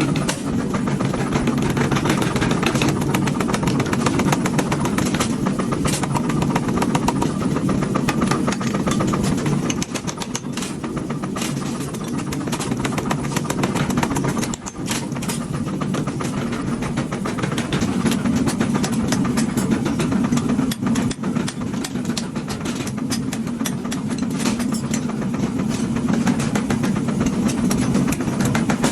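A workshop machine running steadily, with a low hum under a fast, continuous clatter, dipping briefly a few times.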